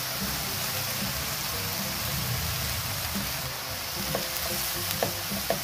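Beef mince and onions sizzling as they fry in a nonstick pan, with a steady hiss. Near the end a wooden spatula starts stirring and scraping through the mince.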